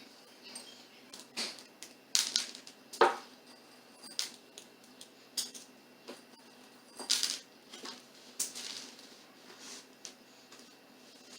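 Irregular light clicks, clatters and short rustles as chocolate chips are handled and sprinkled onto a cake, with the loudest clatter about three seconds in.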